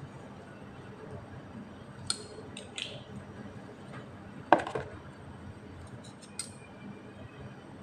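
A few short clicks and knocks of kitchen items being handled, with one sharp knock about halfway through that is much louder than the rest.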